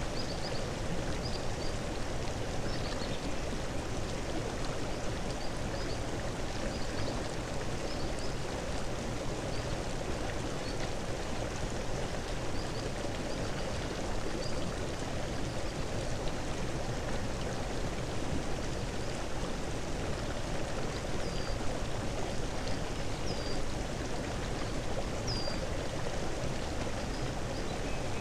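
Steady rushing of flowing water, like a stream, at an even level, with faint short high chirps scattered through it.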